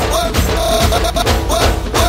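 Upbeat background music with a steady drum beat and a melody over it.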